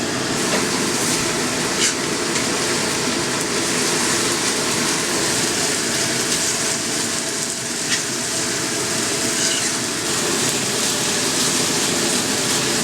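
Ground chicken frying in oil in a pan, a steady sizzle, with a few clicks from a utensil as it is stirred while it cooks down toward crispy.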